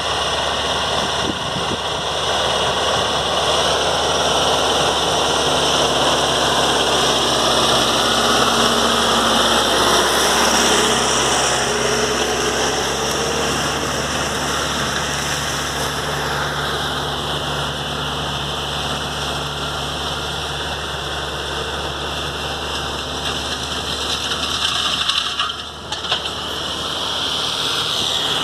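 John Deere 4045 four-cylinder diesel engine in a 5090 tractor running steadily under load while pulling a disc harrow deep through the soil, with a brief drop in level near the end.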